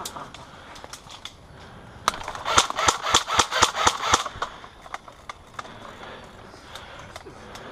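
Airsoft guns firing: scattered single shots, then a rapid burst of clicking shots about two seconds in that lasts about two seconds.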